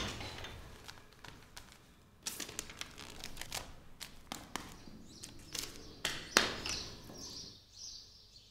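Quiet scattered taps and paper rustling as a handwritten paper sign is pressed and patted onto the back of someone's clothing.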